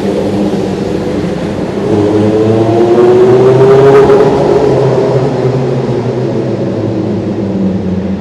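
Motor vehicle engines running in a road tunnel. One engine speeds up and grows louder to a peak about four seconds in, its pitch rising, then drops away and fades.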